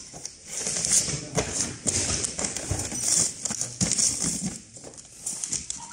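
A glossy printed wrapper sheet rustling and crinkling as it is smoothed and folded around a cardboard firework cake box, with irregular taps and knocks of hands pressing it down.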